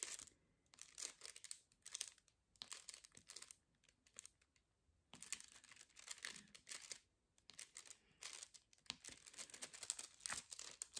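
Faint crinkling and clusters of quick light clicks from hands handling a diamond painting canvas and its plastic covering.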